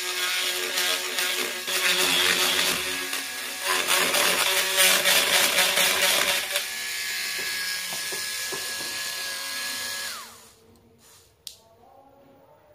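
Corded handheld rotary tool running at high speed, its bit drilling holes through a thin wooden panel, louder while the bit is cutting. About ten seconds in, the motor is switched off and winds down.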